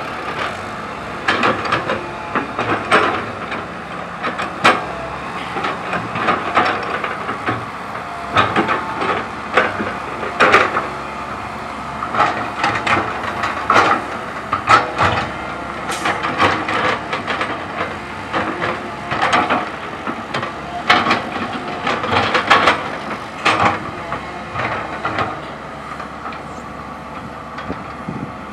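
Komatsu PC130 hydraulic excavator's diesel engine running steadily while its steel bucket digs and scrapes through stony soil, with frequent sharp knocks and clatter of rock against the bucket.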